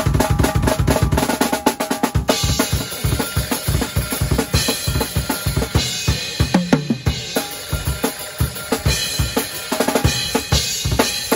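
Acoustic drum kit played hard: bass drum, snare and toms with cymbal crashes. A fast flurry of strokes in the first two seconds gives way to a steady driving beat.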